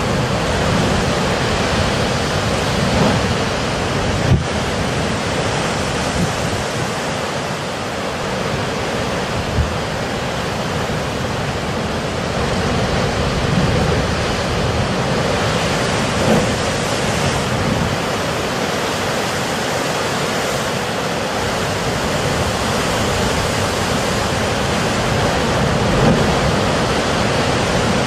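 Sea surf surging through coastal blowholes: a steady, loud rushing noise of water and air, with a few short heavier surges.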